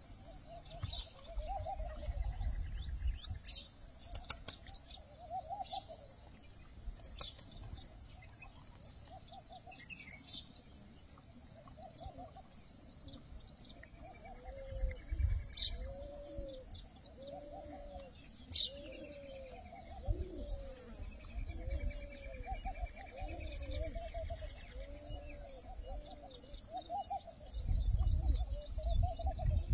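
Pigeons cooing over and over in short rising-and-falling notes, more and more densely through the second half, with scattered sharp chirps of small birds and a few low rumbles.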